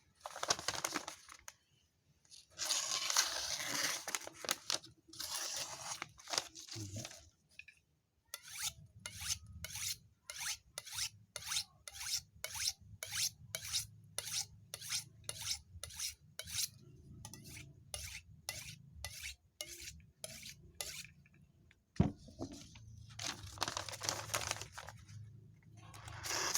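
Knife blade being drawn along a 10-inch steel sharpening steel, with metal scraping on metal. It starts with a few long, slow strokes, then runs into a quick, even series of short strokes, about two a second, for some twelve seconds. Another long stroke comes near the end.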